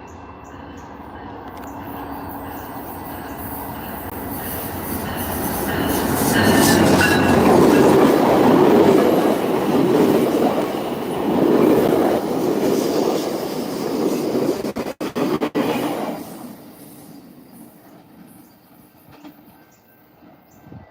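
GO Transit commuter train passing: the rumble of its wheels on the rails swells over about six seconds, stays loud for several more with a brief high squeal about six to seven seconds in, then falls away quickly about sixteen seconds in.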